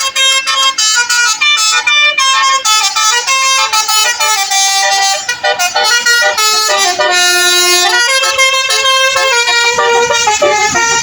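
Bus telolet horn, a set of multi-trumpet air horns, playing a quick melody of short stepped notes, with a longer held chord a little past the middle.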